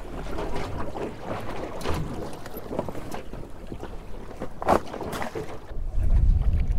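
Wind buffeting the microphone, with water slapping and splashing against the hull of a small aluminium boat on choppy water.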